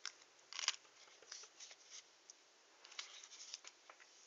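Faint scratching and light clicks of fingers handling and prying at a plastic coin tube to open it. The clicks come in two small clusters, about half a second in and around three seconds in.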